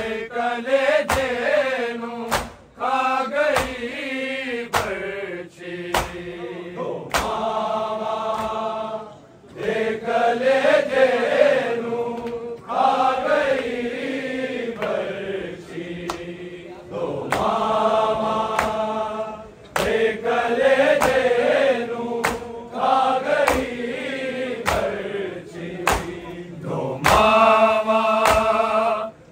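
A Punjabi noha, a Shia lament, chanted by male voices: a reciter and his group, in long melodic phrases with held notes. Sharp beats about once a second keep time.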